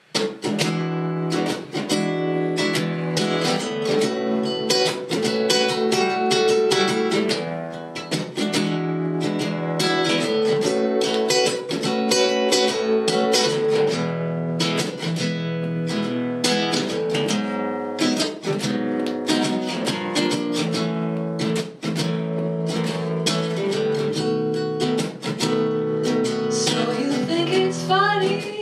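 Acoustic guitar played with strummed chords in a rhythmic pattern. A woman's singing voice comes in near the end.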